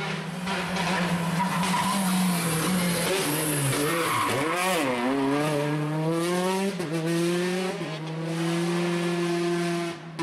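Peugeot 208 T16 R5 rally car's 1.6-litre turbocharged four-cylinder engine at full stage pace: the revs drop as it brakes into a hairpin about four seconds in, then climb again with quick gear changes as it accelerates away.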